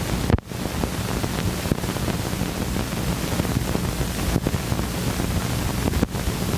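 Hiss and low rumble of an old 16mm film's optical soundtrack with no music or speech, dotted with clicks and pops. The noise drops out briefly three times.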